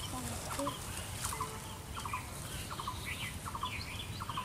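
Birds calling around the pond: short clipped calls repeating about twice a second.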